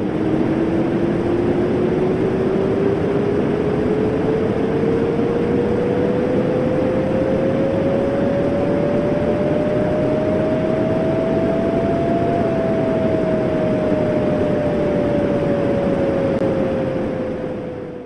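Synthesized space sound presented as the sound of Neptune's moon Hippocamp: a steady rushing noise with one clear tone that glides slowly upward for about twelve seconds, then sinks again. It fades out near the end.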